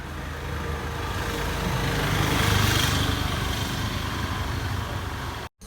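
A motor vehicle's engine running, a low rumble under a wide hiss. It swells to its loudest about halfway through, then slowly eases off.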